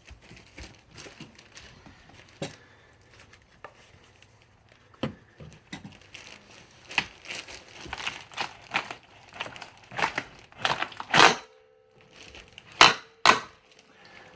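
Aluminum window frame side being pried and bent out of its opening with a clamped vice-grip puller: irregular crunching, creaking and cracking of bending metal. The cracks come thicker in the second half, with the loudest snaps near the end.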